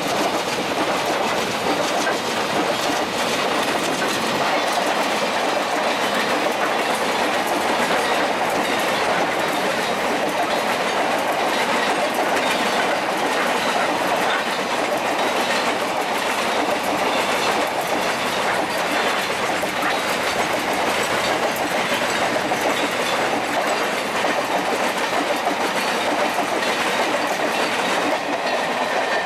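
Container flat wagons of a freight train rolling steadily past, their wheels clattering over the rail joints.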